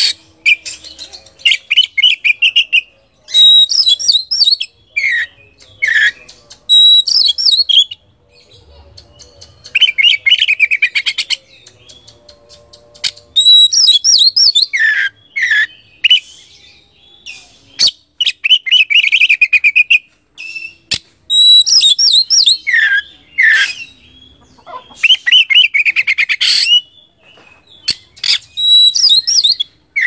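Oriental magpie-robin (kacer) singing loud bouts of rapid trilled and whistled phrases, some notes gliding downward. Each bout lasts one to a few seconds, with short pauses between them.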